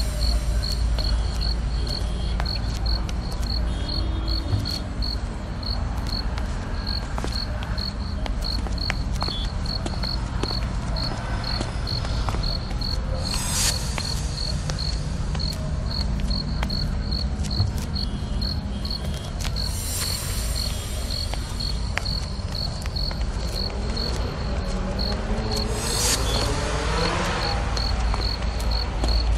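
Crickets chirping steadily, an even pulse of about three high chirps a second, over a low steady rumble of evening ambience. Near the end a brief rising-and-falling sweep passes, like a vehicle going by.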